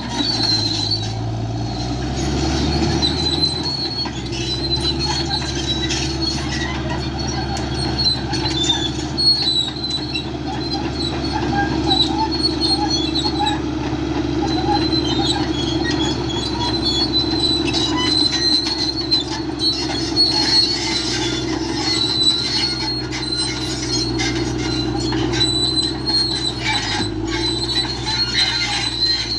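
Backhoe working: its diesel engine runs steadily, shifting pitch a couple of times, while high-pitched metal squealing comes and goes over it.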